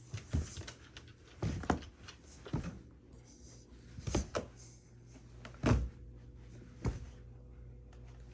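Irregular knocks and thumps, about six in all, the loudest a little past the middle, over a low steady hum.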